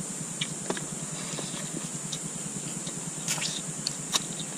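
A steady high insect hum, with scattered light clicks and taps from eating by hand off a banana leaf.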